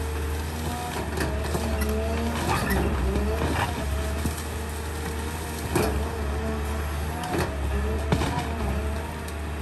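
Caterpillar hydraulic excavator's diesel engine running steadily under load, with a hydraulic whine that rises and falls as the boom and bucket move. Sharp cracks and knocks come now and then as the bucket breaks through brush and branches.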